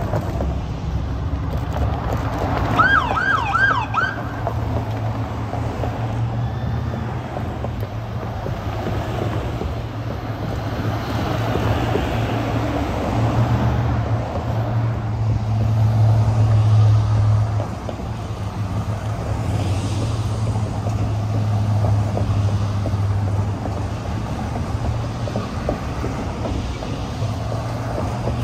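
A police siren gives a short yelp about three seconds in: about four quick rising-and-falling whoops. Under it runs a steady low hum of vehicle engines.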